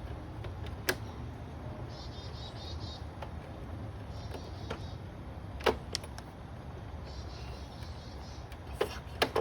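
A hand ratchet clicking in three short runs of fast ticks while exhaust header bolts are worked on, with a few sharp metal clinks of tools and parts and a steady low hum underneath.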